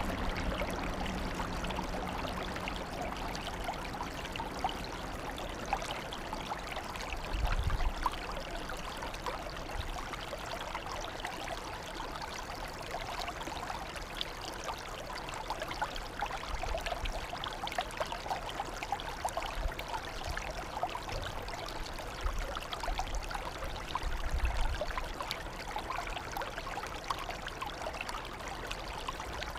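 Running water, a steady trickling, pouring flow. A few brief low rumbles sound under it.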